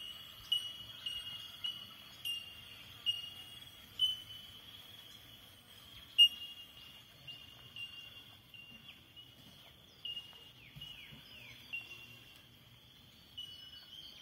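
Birds calling in the bush: a ringing, bell-like note repeated every half second or so over a steady high chorus, with three quick descending whistles near the end. A sharp click about six seconds in is the loudest sound.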